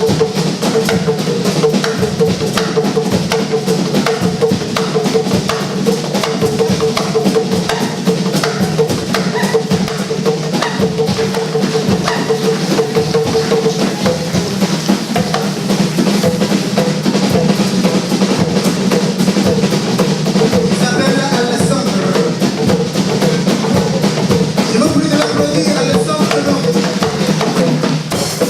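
Instrumental music driven by a drum kit, dense, evenly repeating drum strokes over a steady low bass line, with a held tone sounding over it for about the first half.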